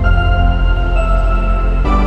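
Background music: held chords over a deep, steady bass, the chord changing about a second in and again near the end.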